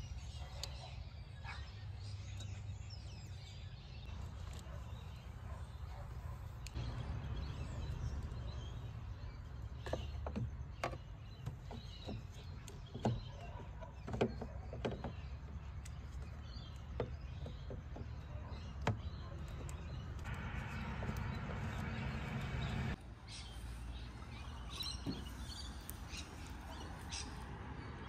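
Scattered light clicks and knocks of gloved hands working the plastic parts at the back of a 2005 Audi A3's headlight in the engine bay, over a low steady outdoor rumble.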